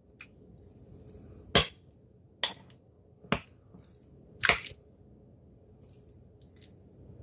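Metal utensil stirring a stiff mix of cream cheese and mashed raspberries in a ceramic bowl: four sharp clinks of metal against the bowl, irregular and roughly a second apart, with faint soft scraping and squishing between them.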